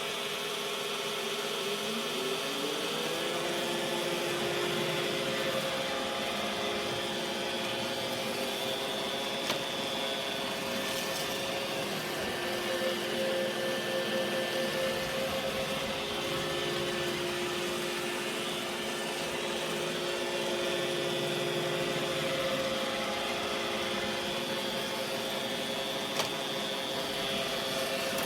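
The motor of an iRobot Roomba Combo j7+ spins up with a rising whine over the first few seconds, then runs at a steady pitch.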